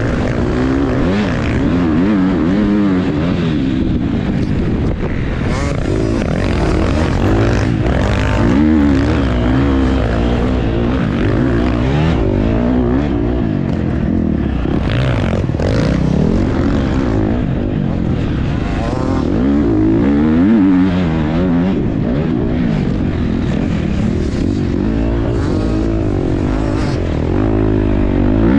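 Motocross bike engine recorded on board, revving up and down again and again as the rider accelerates and backs off around the track.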